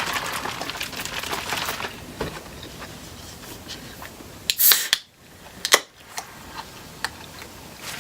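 A drink cup and straws being handled: rustling, then scattered light clicks and two short, sharp snaps a little before and after the halfway point.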